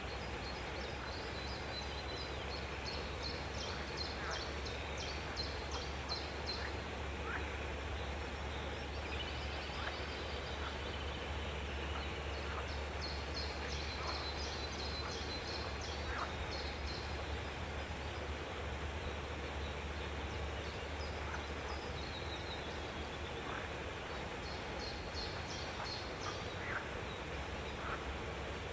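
Aviary birds calling: three bouts of rapid, high, repeated chattering notes, with scattered short chirps between them, over a steady low hum.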